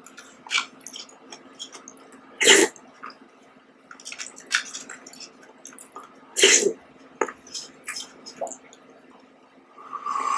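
Close-miked eating of fruit jelly with red grapes: wet mouth sounds and chewing, with small clicks of a metal spoon against plastic jelly cups and louder bursts about two and a half and six and a half seconds in. Near the end, jelly is slurped straight from the tipped cup.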